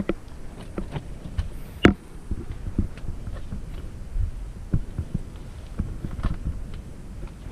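Handling noise from a camera being carried over rock: uneven low thumps and rubbing with scattered clicks and knocks, the loudest a sharp knock about two seconds in.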